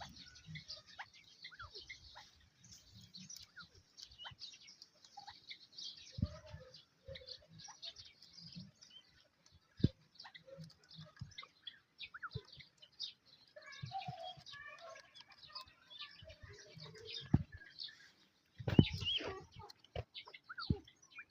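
Small birds chirping continuously with many short, high calls, along with scattered soft thumps and a louder flurry of calls and movement near the end.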